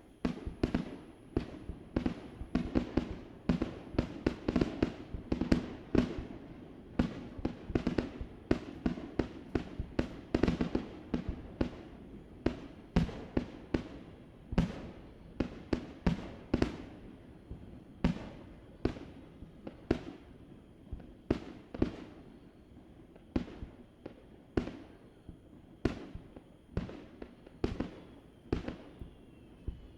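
Fireworks shells bursting across the water in quick, irregular succession, several booms a second, each followed by a rolling echo.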